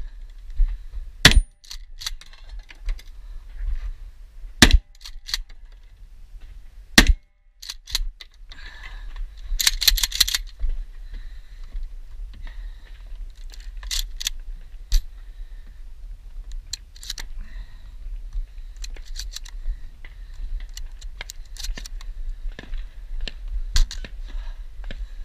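Remington 870 pump-action shotgun fired three times a few seconds apart, with smaller clicks between the shots. A rattling burst of footsteps and gear follows as the shooter climbs wooden stairs, then scattered clicks and knocks.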